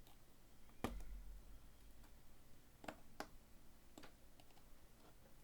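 Small sharp clicks and taps from handling the iPhone 4 and its parts while prying at the motherboard, which is stuck. There is one harder knock about a second in and a few lighter clicks around three to four seconds.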